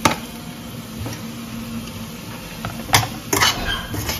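Diced tomatoes tipped off a chopping board into a stainless steel pan, a sharp knock as they go in, then a faint steady hiss from the pan. About three seconds in, a metal spoon clinks against the pan a few times as stirring starts.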